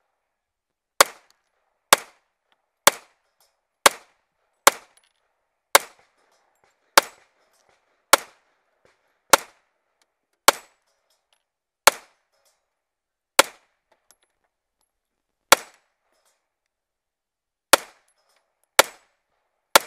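A handgun fired about sixteen single shots at a slow, steady pace. The shots come roughly a second apart at first, with longer gaps of one to two seconds in the second half.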